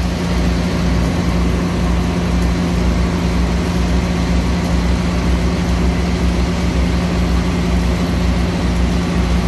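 Engine-driven welding machine running at a steady speed, an unbroken low hum.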